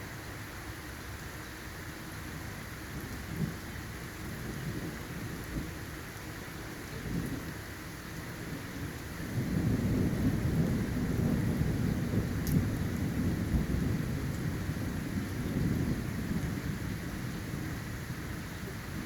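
Steady rain hissing, with a low rumble of thunder rising about halfway through, lasting several seconds and slowly fading.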